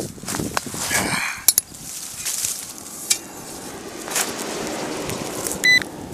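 Scattered crunches, clicks and knocks of handling on dry cornstalk stubble and clods. Near the end a metal detector gives two short high beeps over a buried target.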